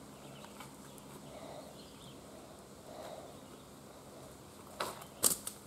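Quiet woodland background with a couple of short knocks near the end.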